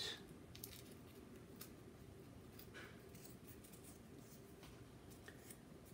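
Near silence with a few faint, short clicks and taps from small laser-cut balsa parts being handled.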